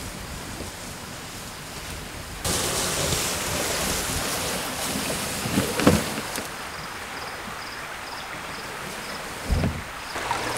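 Loaded kayak dragged by hand over grass and brush, a steady rustling scrape that fades as it moves away, with a few low thumps.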